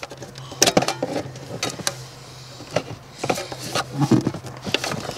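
Scattered plastic clicks and light knocks as a plastic pry tool works the last wiring-harness connector clip loose from a Honda Civic's engine control unit, with the ECU's metal case and harness knocking about.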